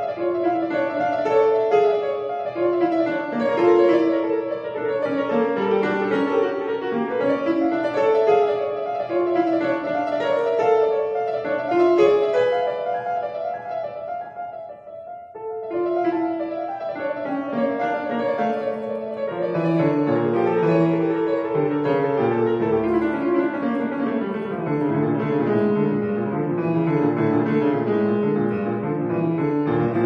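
Grand piano played solo: a repeated high note pulses steadily over a moving melody in the middle register. About fifteen seconds in the playing briefly drops away, then resumes with the bass register filling in from about twenty seconds.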